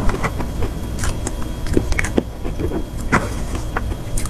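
Close-miked eating sounds: chewing with small, irregular mouth clicks and smacks, and a metal spoon scraping and tapping in a plastic dessert box, over a steady low hum.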